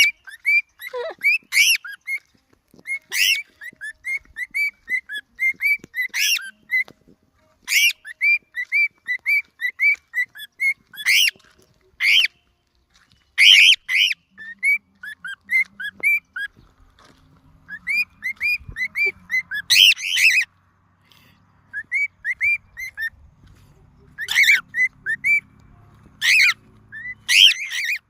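Cockatiels calling: quick runs of short repeated chirps, about three or four a second, broken every few seconds by loud, piercing screeches.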